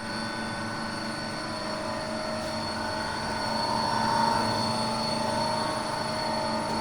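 3E711VF1 surface grinder running, a steady machine hum with a high whine, swelling a little about four seconds in.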